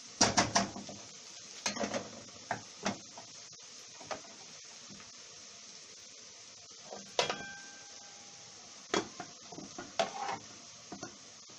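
Metal cooking pan knocking and clattering in short bursts over a steady faint hiss, with one ringing metallic clang about seven seconds in.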